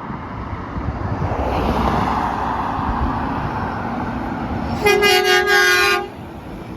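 A semi truck going by with its engine and tyre noise building up, then one loud blast of its air horn, a single pitched note about a second long that cuts off sharply.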